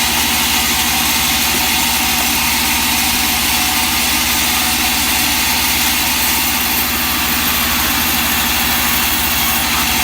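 A sawmill engine running steadily at an even speed, a low fast pulse under a wide hiss, with no change in load.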